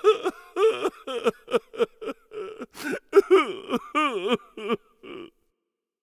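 A person's voice in exaggerated, cartoonish outbursts: a run of short wavering cries that bend up and down in pitch. It stops a little after five seconds in.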